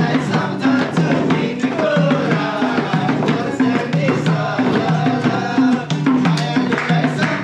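Upbeat music with a steady drum and percussion beat and a repeating bass line.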